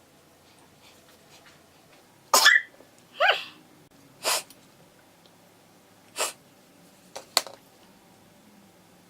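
A person sneezing repeatedly: about six short, sharp bursts over some five seconds, the first two the loudest.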